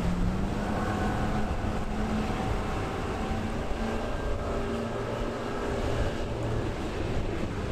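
Twin outboard motors on a center-console boat running at speed, a steady engine drone over a low rumble that fades a little near the end.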